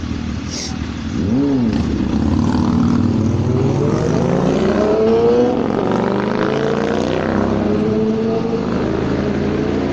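A motor vehicle's engine accelerating close by, getting louder about a second in and rising in pitch over several seconds before levelling off.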